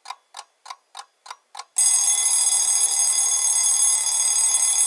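Countdown timer's alarm: six quick ticks, about three a second, then just under two seconds in a loud, continuous alarm-clock bell ringing, which marks the end of the countdown.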